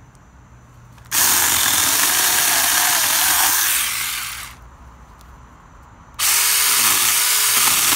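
Saker 20-volt cordless mini electric chainsaw running and cutting through a sapling trunk in two bursts: the first starts about a second in and lasts about three seconds, the second starts about six seconds in and runs on. The motor's pitch wavers as the chain bites into the wood.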